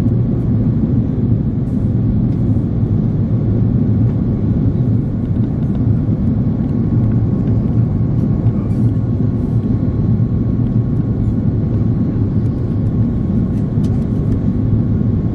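Airbus A330-300 cabin noise in flight: a steady low rumble of the engines and airflow heard inside the passenger cabin, with a faint steady whine above it.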